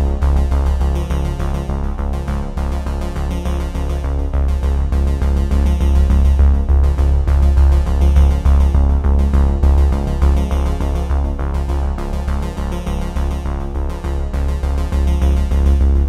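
Background electronic music with a steady synthesizer beat and heavy bass.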